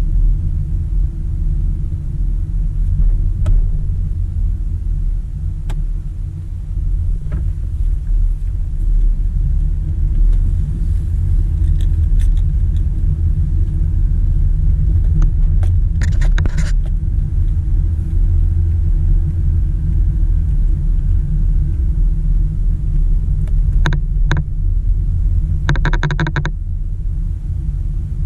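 2007 Toyota Sienna minivan driving at steady speed: a continuous low rumble of road and engine noise. A few short clicks come about halfway through, and a quick run of clicks follows a couple of seconds before the end.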